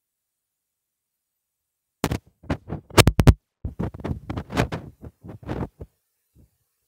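Irregular thumps, knocks and scrapes of the phone's microphone being handled and rubbed. They start about two seconds in, are loudest in a quick cluster about a second later, then thin out into softer knocks.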